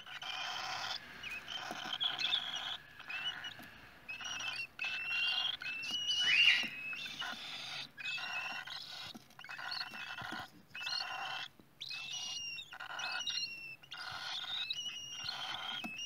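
Cockatiel chicks begging in the nest: a steady run of raspy, hissing calls, each about half a second to a second long, with thin high whistling notes over many of them.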